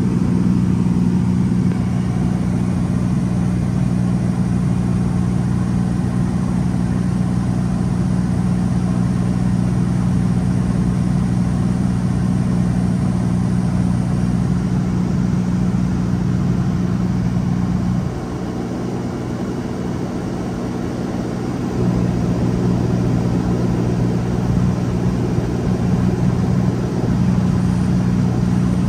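Piper Comanche 260B's six-cylinder piston engine and propeller droning steadily, heard inside the cabin in flight. The drone drops in level for a few seconds about two-thirds of the way through, then comes back.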